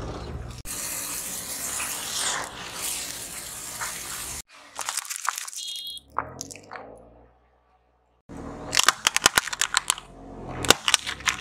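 A car tyre rolling slowly over small objects and crushing them one after another: a squishing crackle, then a short squeak as soft squishy toys are flattened. Near the end comes a rapid run of sharp cracks as plastic cups break under the wheel.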